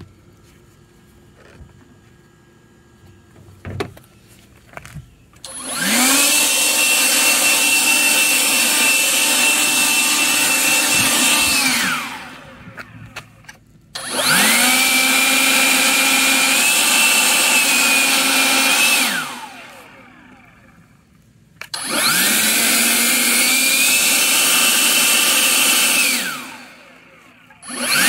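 Kobalt 40-volt cordless electric leaf blower switched on three times with its trigger, each time the fan whining up to a steady high pitch with a loud rush of air for about five or six seconds, then winding down in a falling whine; it starts a fourth time near the end. Before the first run there are a few seconds of quiet handling clicks.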